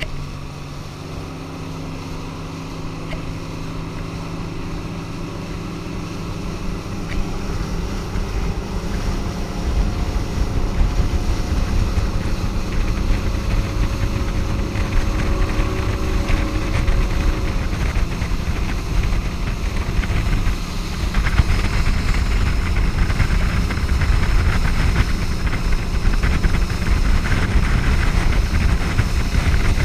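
Motorboat running under way: a steady engine drone over water rushing and spraying along the hull, with wind buffeting the microphone. The rush of water and wind grows louder and covers the engine tones in the second half.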